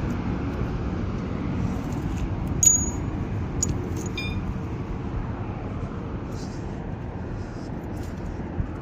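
Steady rumble of passing road traffic, with two short ringing metal clinks about a third and halfway through, loose barrier bolts knocking together.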